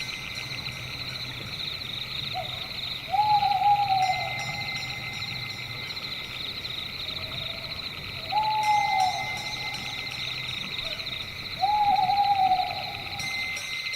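Night ambience: an owl hoots three times, each hoot a drawn-out call that rises and then falls, preceded by a short softer note. Beneath the hoots runs a steady, high, pulsing insect chorus.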